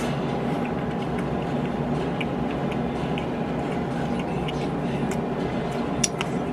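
A person chewing a hot dog close to the microphone, with a few sharp wet mouth clicks about five and six seconds in, over a steady droning hum.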